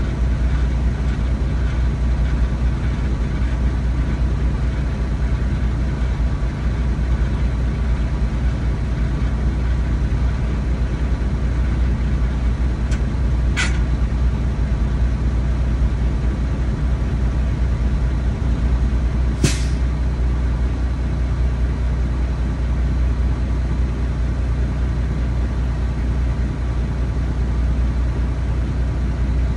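A semi truck's diesel engine running with a steady low drone. Two short, sharp hisses come through, about halfway through and again some six seconds later.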